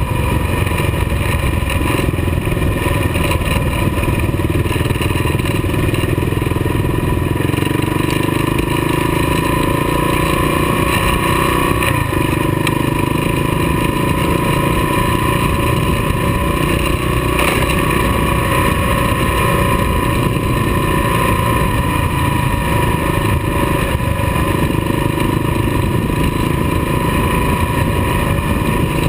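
Kawasaki KLR dual-sport motorcycle's single-cylinder engine running steadily at road speed on gravel, heard from the bike itself with wind noise over the microphone.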